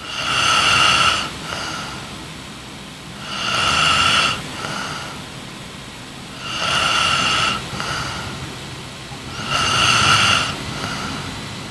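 A young woman snoring in her sleep: four snores about three seconds apart, each a longer one followed by a shorter, softer one.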